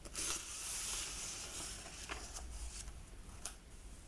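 A paperback book's page being turned close to the microphone: a papery rustle lasting about a second and a half, then a few short handling clicks. Underneath runs a faint, steady recorded ambience of soft wind in tall grass.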